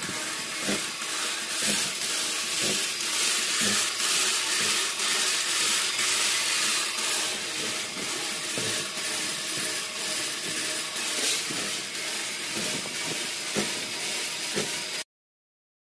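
Metal lathe running with a pump impeller in the chuck: a steady high hiss with a soft knock about once a second. The sound cuts off suddenly near the end.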